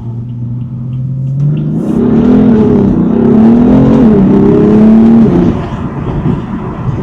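BMW M4 (F82)'s twin-turbo straight-six running at low revs, then accelerating hard from about a second and a half in, its pitch climbing and dipping a few times before it eases off after about five seconds.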